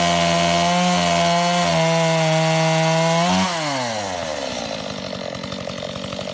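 Two-stroke chainsaw engine running at high speed at a steady pitch. About three and a half seconds in, the revs drop away over a second to a lower, rougher idle.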